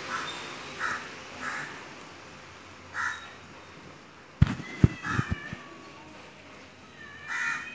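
A crow caws several times in short, harsh calls. About halfway through come a few sharp low thumps, and a cat gives a brief falling yowl during the standoff.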